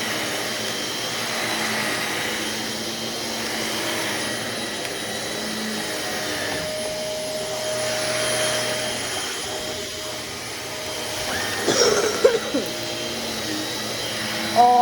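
Bagless vacuum cleaner running steadily, its motor whine rising and falling slightly as it is pushed over the floor, with a short louder knock or clatter about twelve seconds in.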